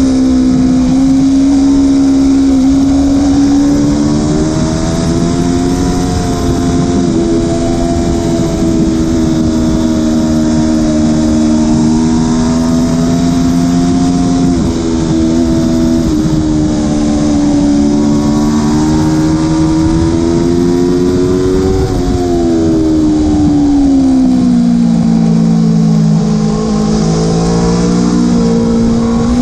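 Aprilia Tuono motorcycle engine at track speed, its pitch climbing and falling through the lap's straights and corners, dropping markedly about 23 seconds in as the bike slows, under constant heavy wind rush.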